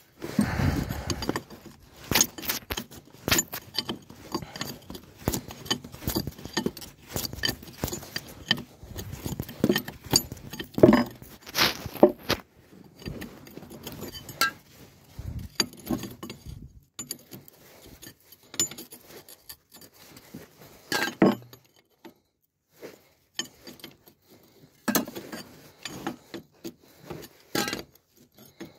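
Metal hand tools and parts clinking and clanking in irregular knocks, with a sparser stretch in the middle.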